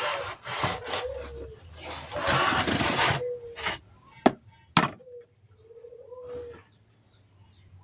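Scraping strokes in the rusty hand saw restoration, ending about three seconds in, then two sharp knocks close together. Doves coo and small birds chirp softly in the background.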